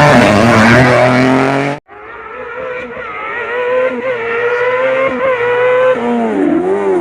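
A race car's engine at high revs close by, cut off abruptly just under two seconds in. Then another race car comes in quieter, revs held high and steady, getting louder. Near the end its revs drop and pick up again several times.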